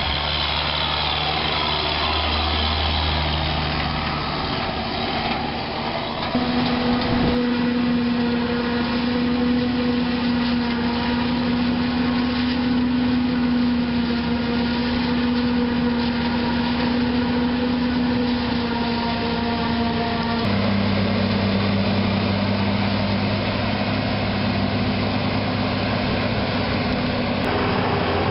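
Diesel engines of forage-harvesting machinery (forage harvester and tractors) running steadily under load. The engine note changes abruptly twice, about a quarter of the way in and again about two-thirds of the way in.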